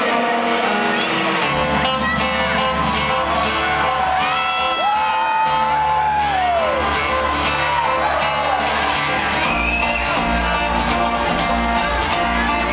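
A bluegrass string band (banjo, mandolin, guitar and upright bass) playing live, heard from the audience in a large hall, with whoops and shouts from the crowd over the music. The bass comes in heavier about ten seconds in.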